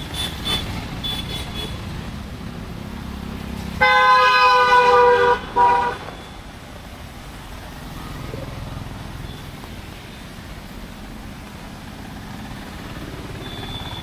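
A vehicle horn honks, one long blast of about a second and a half about four seconds in, then a short second blast. Steady street and traffic noise runs underneath, with a low rumble of a passing vehicle before the horn.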